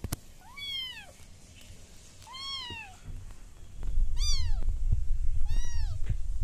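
Ginger kitten meowing four times, short high calls that rise and then fall, about every one and a half seconds. A low rumble sets in about halfway through and is louder than the calls.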